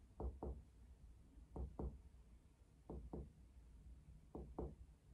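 Finger-on-finger chest percussion on a patient's back: four pairs of soft double taps, one pair about every second and a half. The taps step along the back to find where the resonant lung note turns dull at the lower lung border.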